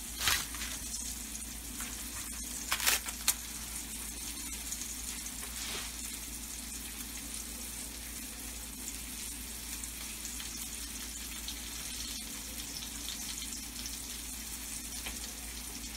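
Beef chuck roast searing in a hot skillet: a steady sizzle, with a few brief sharp knocks or rustles, the loudest about three seconds in.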